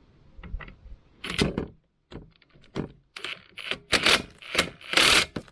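Metal tools and parts clinking and clattering as they are handled, with a series of separate sharp clicks and a short rattle near the end.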